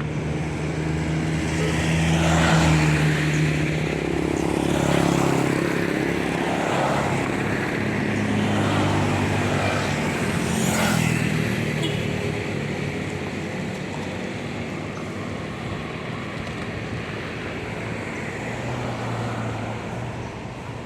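Tour bus diesel engine running as the bus pulls away and drives past, its engine note shifting as it accelerates and fading somewhat later on. A short hiss comes about eleven seconds in.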